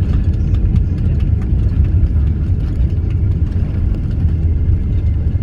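Steady low rumble inside the cabin of a Boeing 777 rolling along the runway after landing, with faint light clicks above it.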